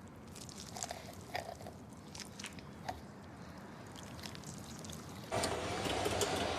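Eating sounds: scattered small clicks and crunches of chewing and utensils over a quiet room. About five seconds in, a louder steady background noise starts abruptly.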